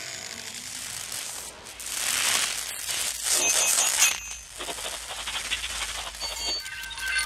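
Film sound-design effects of a Transformers robot transforming: metallic rattling, clicking and clinking of mechanical parts, swelling louder about two seconds in and again near four seconds.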